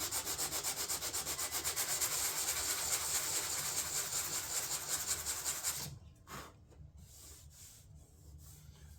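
Sandpaper rasping back and forth over a repaired fiberglass door panel in quick, even strokes of about five a second, stopping about six seconds in. The sanding levels the filled cracks and shows up the low spots.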